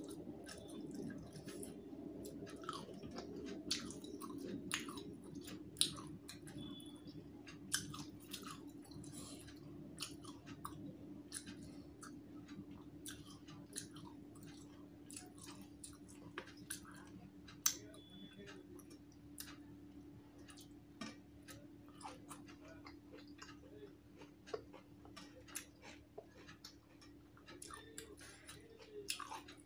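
A person chewing food close to the microphone, with many short, wet mouth clicks and smacks scattered throughout, over a faint steady hum.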